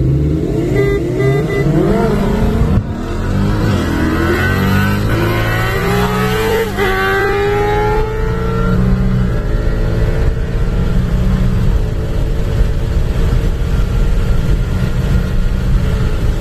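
Coyote 5.0-litre V8 of a 2019 Mustang heard from inside the cabin on a hard acceleration run. The revs climb, drop at upshifts about three and seven seconds in, climb again, and then settle into steady high-speed running.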